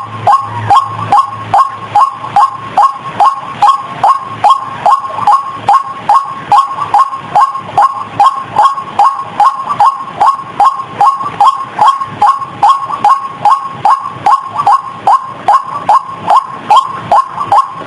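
White-breasted waterhen (ruak-ruak) calling: a loud, unbroken run of short falling notes, about three a second, repeated in a steady rhythm. This is a lure (pikat) recording used to draw the birds in.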